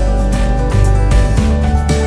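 Instrumental background music: held bass notes under layered pitched notes, with a steady beat.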